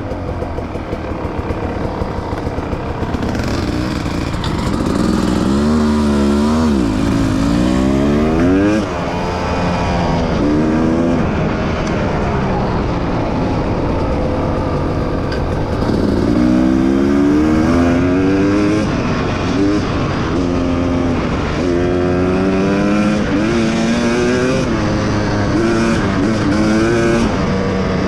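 Two-stroke dirt bike engine running under load, revving up and dropping back over and over as the throttle opens and closes, its pitch climbing then falling several times.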